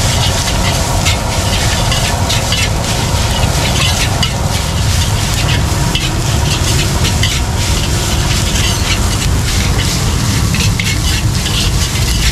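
Metal ladle scraping and clacking against a steel wok as egg fried rice is stir-fried, over a steady sizzle. The clacks come several times a second.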